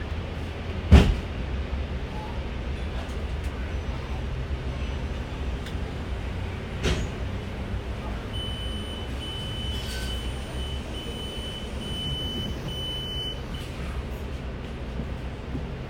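Inside a KMB bus on the move: a steady low rumble of engine and road, with a sharp knock about a second in. Midway a high electronic beep repeats about six times over some five seconds.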